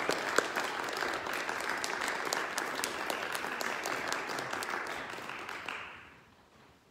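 Audience applauding, a dense patter of many hands clapping, dying away about six seconds in.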